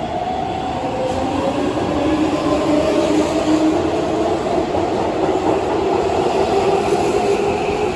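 Keihan 7200 series electric train accelerating out of an underground station: the Toyo Denki GTO VVVF inverter and traction motors give several whining tones that rise slowly in pitch, over rumble and wheel clatter from the passing cars.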